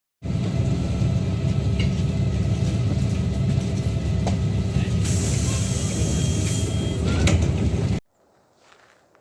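Steady low rumble of a moving vehicle with a faint steady hum over it. It starts abruptly and cuts off suddenly about eight seconds in.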